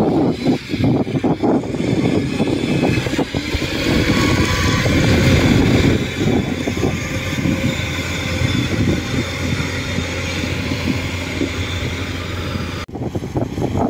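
Engine of a tracked rice-hauling carrier running as it crawls along loaded with sacks of rice. The sound changes abruptly near the end.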